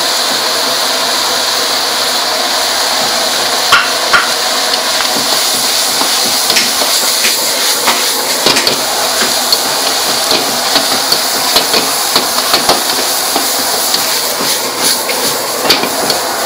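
Stir-frying greens in a steel wok over a high gas flame: a steady, loud sizzle and hiss. A metal ladle clanks and scrapes against the wok, the strikes starting about four seconds in and coming quickly in the second half.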